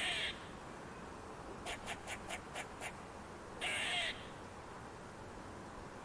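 A bird's harsh, rasping calls: one at the start and another about three and a half seconds later, with a quick run of six short notes in between.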